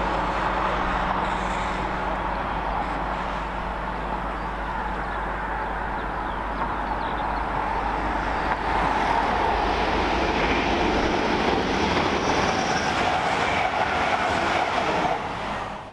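A passenger train rushing past close by at speed: rail and wheel noise swells about halfway through and stays loud until it cuts off at the end. Before that there is a lower, steadier rumble with a low hum.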